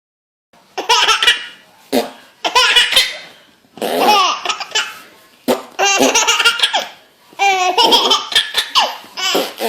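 A baby laughing hard in repeated fits, about six bursts of high-pitched belly laughter, each lasting around a second, with short breaths between them.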